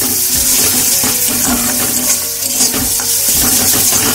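Masala paste sizzling in hot oil in a wok while a spatula stirs and scrapes it across the pan in irregular strokes. This is the stage of frying the onion, tomato and ground-spice paste down (kashano).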